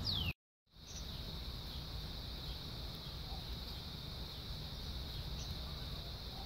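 A northern cardinal's whistled song note sliding down in pitch right at the start, broken off by a brief gap of silence. Then a steady high-pitched insect drone over a low background rumble.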